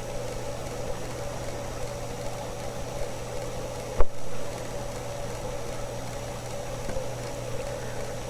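Steady low electrical-sounding hum with background hiss, and one sharp click about four seconds in.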